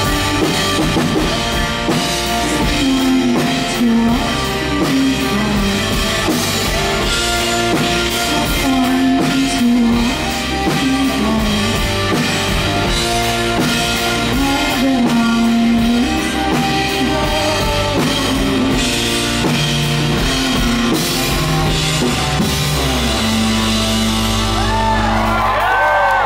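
A woman singing live with an indie rock band, over electric guitar and drums. Near the end the band holds a final chord, and the audience starts to whoop.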